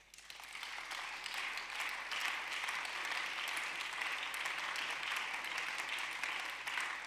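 Parliament members applauding, many hands clapping together. It swells over the first second and then holds steady.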